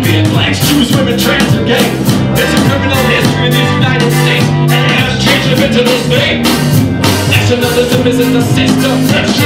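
Live hip-hop polka band playing at full volume: accordion, electric bass and drum kit over a steady, driving beat.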